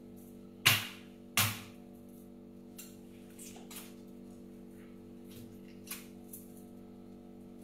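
Two heavy meat-cleaver chops through a cooked chicken onto a chopping board about a second in, followed by a few lighter knocks and clicks of knife work, over a steady low hum.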